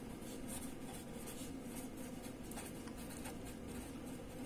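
Felt-tip marker writing on paper: a run of short, faint scratchy strokes as words are written by hand.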